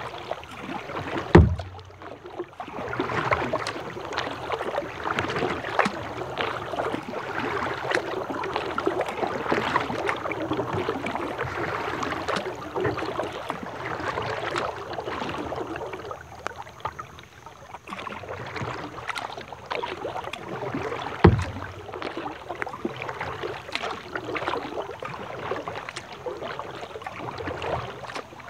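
Rain falling on a plastic kayak and the river surface: a dense spatter of small drop ticks over a steady hiss. Two short low thumps stand out, one about a second in and one about twenty-one seconds in.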